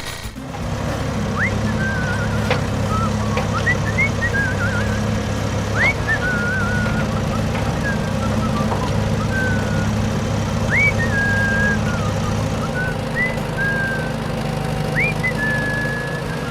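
A steady low motor drone with many short, high chirping whistles over it, rising sweeps and warbles coming every second or so. The lowest part of the drone drops away near the end.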